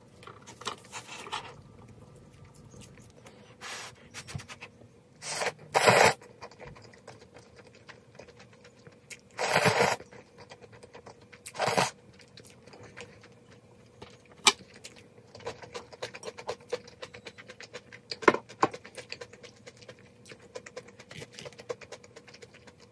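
A person eating close to the microphone with chopsticks: chewing on cup jjajang ramen noodles, fried egg and pan-fried dumplings, with a few loud slurps and chopstick clicks. A faint steady hum runs underneath.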